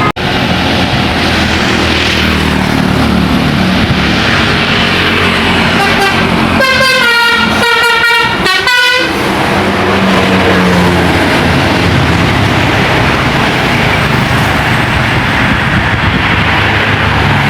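Loud road noise from passing heavy vehicles. About seven seconds in, a bus's 'telolet' multi-tone musical horn plays a quick run of short notes for about two seconds.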